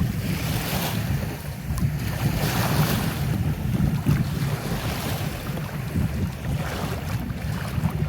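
Strong wind buffeting the microphone with a heavy low rumble, over waves washing around an inflatable kayak on choppy water; the wash swells and fades every couple of seconds.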